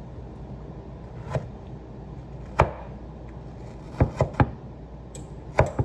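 Knife cutting tomatoes: about seven sharp knocks at uneven intervals, with a quick run of three about four seconds in.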